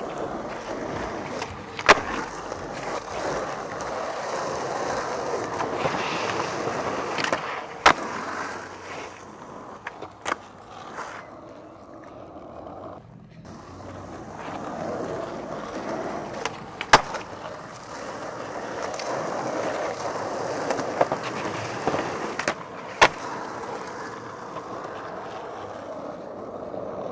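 Skateboard wheels rolling over rough asphalt, with several sharp clacks of the board striking the ground, the loudest about two-thirds of the way through. The rolling drops away briefly near the middle.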